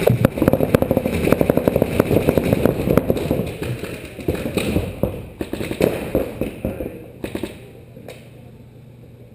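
Paintball markers firing rapid strings of shots, several guns at once, thinning out after about seven seconds.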